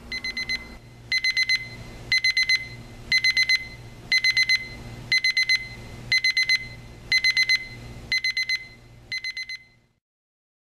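Equity 31015 digital alarm clock's alarm going off: a piercing high electronic beep in quick bursts of about four beeps, one burst a second, ten bursts in all. The first burst is quieter, and the alarm cuts off near the end.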